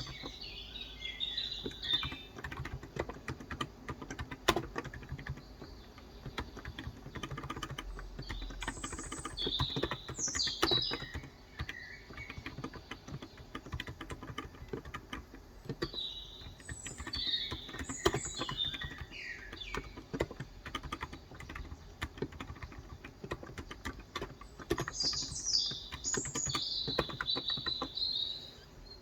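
Typing on a Cox Endeavour electro-capacitive (Topre-style) tenkeyless keyboard with 35 g switches: a steady run of soft keystrokes. Birds chirp over it in short bursts of song several times.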